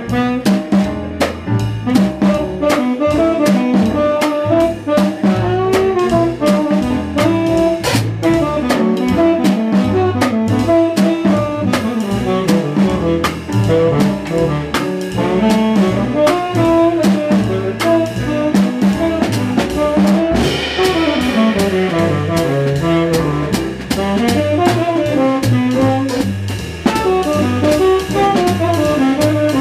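Jazz quintet playing live: a horn melody over piano and double bass, with the drum kit keeping a steady swing on the ride cymbal with sticks.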